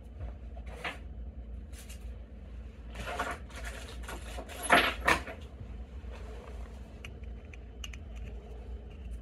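Handling sounds from a brass ball-bearing door hinge held in the hand: short rustles and scrapes, loudest about five seconds in, then a few light clicks near the end as the finial tip is brought onto the top of the hinge barrel. A steady low hum runs underneath.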